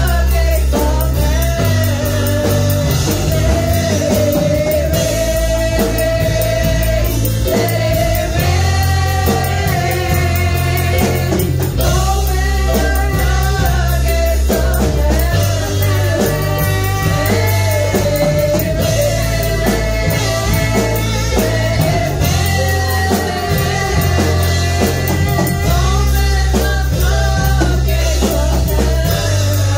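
Live worship band playing a gospel song: women's voices singing a melody into microphones over electric bass guitar, keyboard and drums.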